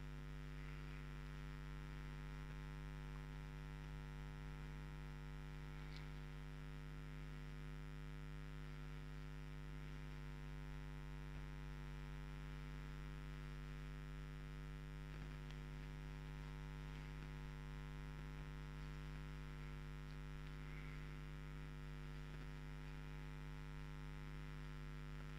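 Steady electrical mains hum, a low buzz made of several even tones, with a few faint ticks now and then.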